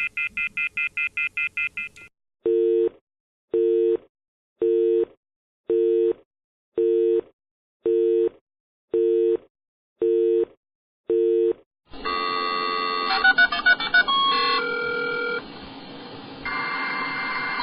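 Telephone sound effects: a fast electronic ringing trill cuts off about two seconds in. It is followed by a busy signal of nine short low beeps, about one a second. From about twelve seconds in, a melodic electronic phone tune plays.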